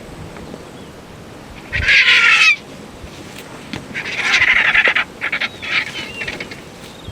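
Vultures squabbling over a carcass, giving harsh, rasping hisses and squeals: a burst about two seconds in, a longer one around four seconds, then a few short ones.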